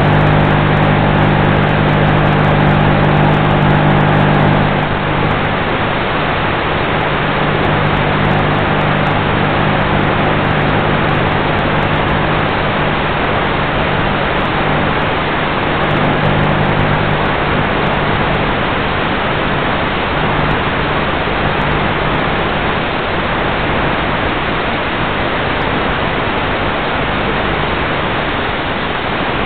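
Steady hiss with a low, even hum from the onboard audio of a Bixler 3 RC plane in flight. The motor is drawing well under an amp, so it is gliding with little or no power. The hum is strongest for the first five seconds or so, then drops back under the hiss.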